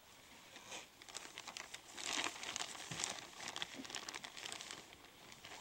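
Close, irregular rustling and crinkling: a dense run of small crackles, loudest about two seconds in, dying away near the end.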